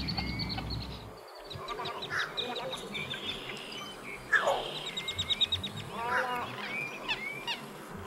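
Many birds of a mixed wading-bird nesting colony calling over one another: rapid rattling trills, short harsh squawks, and one loud call falling steeply in pitch about four seconds in.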